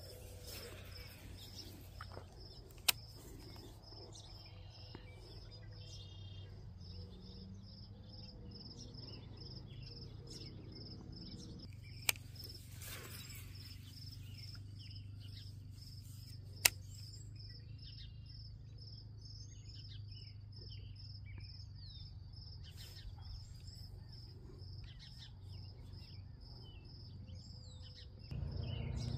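Cricket chirping in a steady, even pulse, with a few bird chirps and a low steady hum underneath. Three sharp clicks break in, the loudest about two-thirds of the way through.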